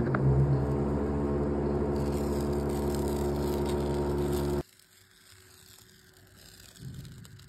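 A steady machine hum with many even overtones, cutting off suddenly about four and a half seconds in, followed by faint rustling.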